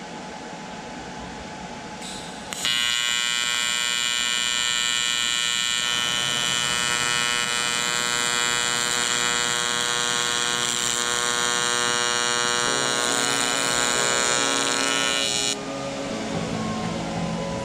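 Miller Multimatic 220 AC/DC welding aluminum in AC TIG mode: the arc strikes about two and a half seconds in and buzzes steadily for about 13 seconds, then cuts off suddenly. A steady whir runs before and after the arc.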